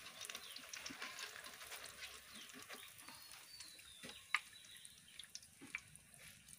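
Faint crackle of hot frying oil in a wok as fried raw-banana bajjis are lifted out on a wire-mesh strainer and oil drips back into the pan, with scattered small ticks and one sharper click about four seconds in.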